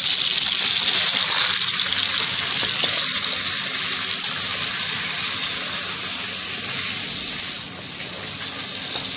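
Raw beef chunks sizzling in hot oil in a wok while being stirred and turned with a wooden spatula: a steady frying hiss.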